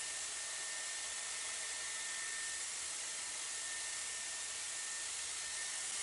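Dyson Airwrap round brush attachment blowing hot air through the hair as it is rolled down a section: a steady rushing hiss with a faint high whine.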